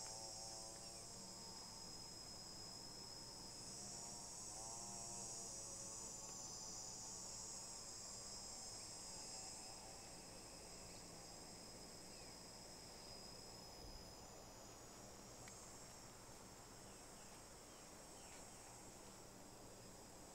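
Faint, steady high-pitched buzzing of an insect chorus.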